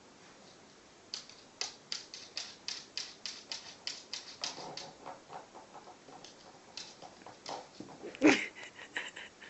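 A small Maltese dog's claws clicking on a hard wooden floor as it moves about, about four clicks a second at first, then scattered. One louder short sound near the end.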